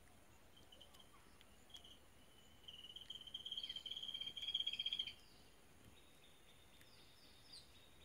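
A high, rapidly pulsing animal trill lasting about two and a half seconds, beginning a little before the middle after a couple of short high blips. A few short falling chirps follow near the end, over a faint background hiss.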